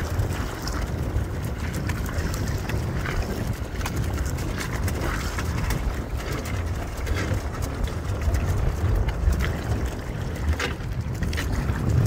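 Wind buffeting the microphone over choppy sea water against a small boat, a steady low rumble with a few short knocks and rattles scattered through it.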